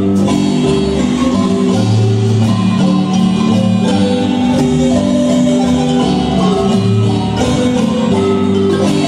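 A Guatemalan marimba band playing live through a PA system. Sustained marimba notes carry the tune over a steady low bass line.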